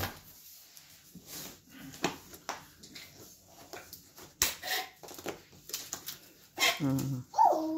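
Cardboard shipping boxes and packing tape being handled: scattered rustles and knocks, with one short sharp rasp about four and a half seconds in. Brief vocal sounds near the end.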